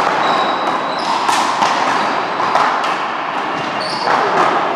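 A one-wall handball and paddleball rally: the ball smacks repeatedly off paddle, gloved hands, wall and floor, with short high sneaker squeaks on the court. The hits echo in a large hall.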